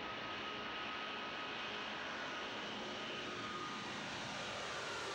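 Airbus A380's four turbofan engines at takeoff thrust during a minimum-unstick-speed takeoff: a steady jet noise with a thin high whine as the airliner lifts off and climbs away.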